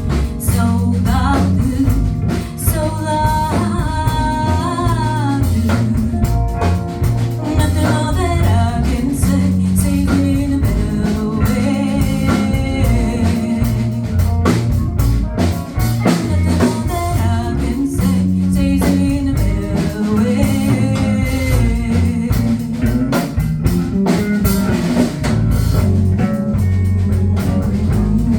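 Live band playing a song: a voice singing in phrases over guitar and drum kit, with a steady low bass line.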